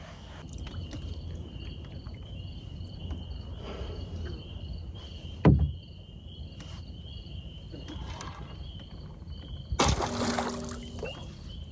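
A recurve bow shot at a carp, which missed: the bowstring releases with a sharp, loud thump about five and a half seconds in, and about ten seconds in a brief rush of splashing water follows. Insects chirp steadily throughout, over low lapping water.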